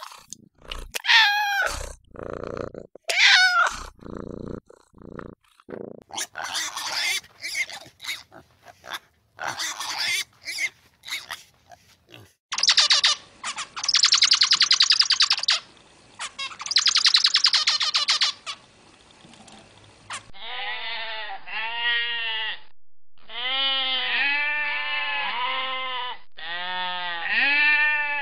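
A run of different animal calls, cut one after another. Cat meows come in the first few seconds, then rasping, noisy calls. From about two-thirds of the way in there is a string of wavering bleats, like a goat's.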